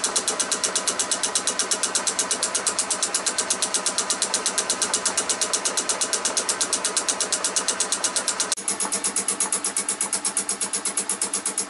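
Metal lathe machining the faces of cast paddles with a homemade boring bar, the cut giving a fast, very regular clunking. About three-quarters of the way through it drops slightly in level and then carries on at the same rhythm.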